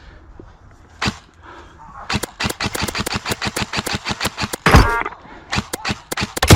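Airsoft electric guns firing: a single shot about a second in, then rapid strings of shots at roughly seven or eight a second, broken by a brief louder ringing sound near five seconds.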